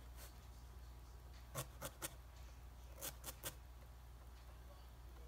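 Faint handling sounds: a few light clicks and taps, in two short clusters, as metal felting needles are picked among in a foam felting pad. Underneath is a quiet room with a steady low hum.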